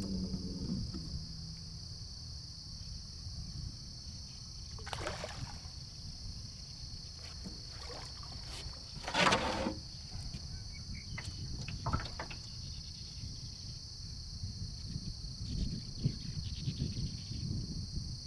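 A steady, high-pitched insect chorus over low water and boat noise, broken by two splashes about five and nine seconds in as the hooked redfish thrashes during the fight.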